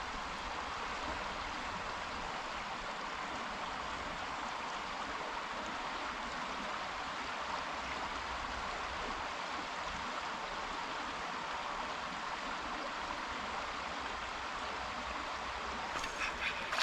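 Creek water running in a steady, even rush, the creek up after rain.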